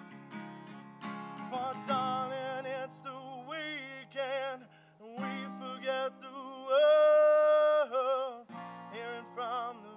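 Solo acoustic guitar strummed, joined about one and a half seconds in by a man singing, who holds one long note past the middle.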